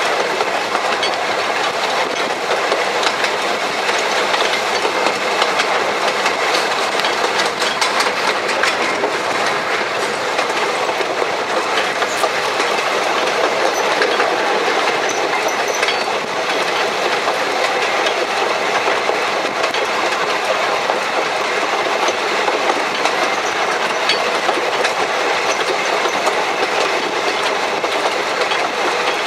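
1883 Hunslet narrow-gauge steam locomotive and her train running along the track, heard close up from the tender: a steady rattle and rumble of the moving train, with sharp clicks of the wheels over the rail joints a few seconds in.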